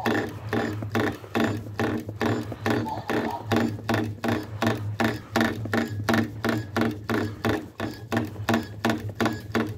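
Arcade noise: a fast, even run of knocks, about three a second, over a steady low hum.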